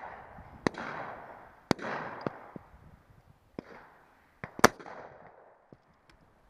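Shotgun shots on a driven shoot: a string of sharp reports. Three louder ones each trail off in a rolling echo, at the very start, just under two seconds in, and the loudest about four and a half seconds in, with smaller single cracks between them.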